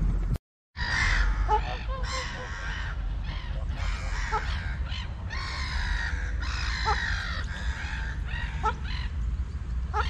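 Many birds calling over one another, with short sharp calls repeating throughout over a steady low background noise. The sound cuts out briefly just under a second in.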